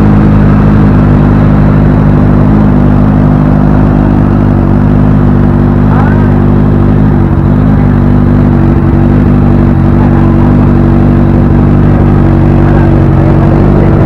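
Honda CB650's inline-four motorcycle engine running steadily through an aftermarket muffler during a sound test, at a constant pitch without revving.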